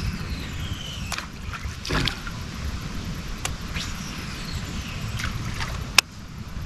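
Small fishing boat on a pond: a steady low rumble of wind and water with scattered light clicks and knocks from handling tackle, the sharpest about six seconds in.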